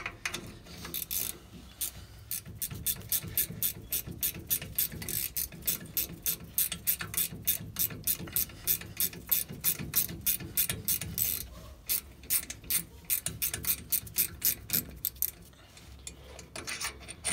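A ratcheting wrench clicking quickly, about four clicks a second in runs with short pauses, as a 10 mm brake caliper bolt is backed out.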